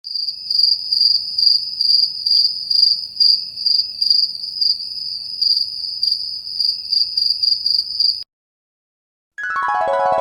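Cricket chirping sound effect, the 'awkward silence' meme sound: a steady high chirping that pulses about twice a second, then cuts off suddenly. After a brief silence a short musical glide of notes starts near the end.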